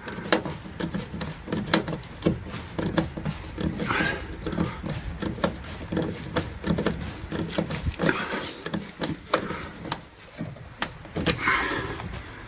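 A wooden panel being handled and fitted into place: irregular knocks, taps and rustling, with two short hissing swishes, one about a third of the way in and one near the end.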